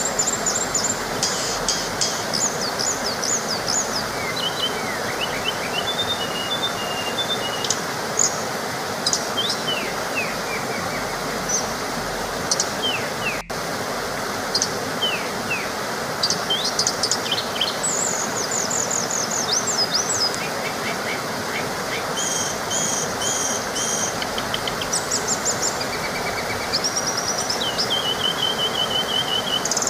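A small waterfall rushing steadily, with several birds chirping and trilling over it throughout.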